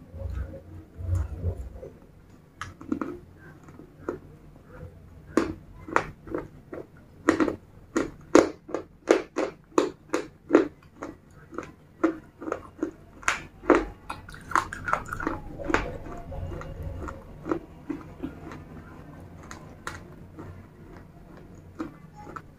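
A person chewing broken slate pieces coated in red paste, close to the microphone: sharp, crisp crunches about two a second, densest through the middle, with softer, sparser chewing at the start and end.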